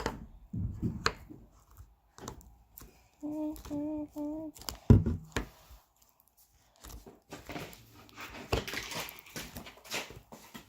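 A girl humming three short notes, among scattered knocks and handling noises. One sharp thump comes about five seconds in, and rustling noise fills the last few seconds.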